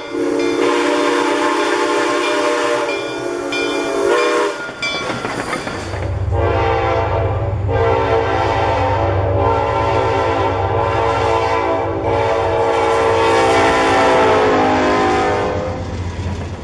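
A steam locomotive's chime whistle, Reading & Northern 4-6-2 #425, blows one long note for about four seconds. After a cut, a Norfolk Southern diesel freight train sounds its horn in several long blasts over the low rumble of its locomotives as it rolls past.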